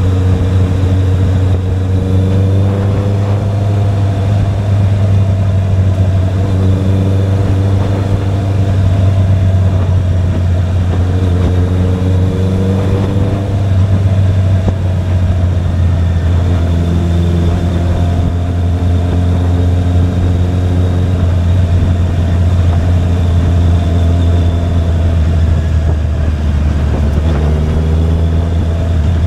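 Honda CBR650R's inline-four engine running, its note stepping up and down with the throttle over a steady low hum.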